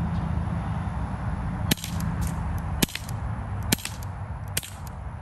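Smith & Wesson air pistol fired four times, roughly a second apart, each shot a sharp crack, over a steady low wind rumble.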